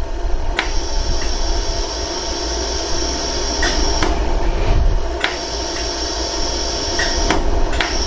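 Pulsed laser jewellery welding machine firing slow single shots at a gold ring: sharp clicks at irregular intervals about a second apart, over a steady machine hum and a high whine that cuts in and out.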